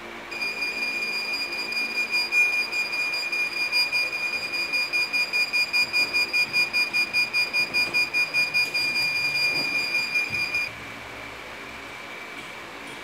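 Heat press's digital timer buzzer sounding a high electronic beep: the end-of-press alarm telling the operator the pressing time is up. It starts as a near-continuous tone, breaks into fast even pulses of about three a second, and cuts off suddenly about ten and a half seconds in, as the press is opened.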